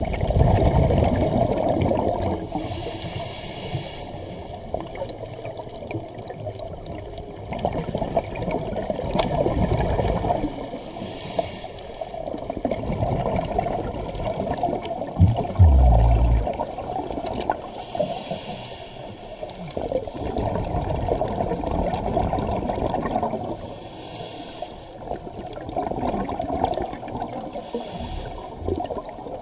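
Scuba regulator breathing underwater: five short hissing inhales, each followed by a longer low rush of exhaled bubbles, with a heavier low thump about halfway through.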